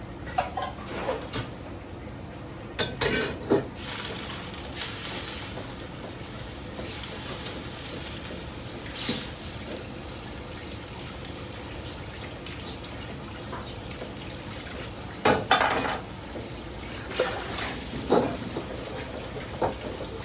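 Tap water running into a wok as it is scrubbed out with a wok brush, with scrapes and clanks of metal now and then, the loudest about fifteen seconds in.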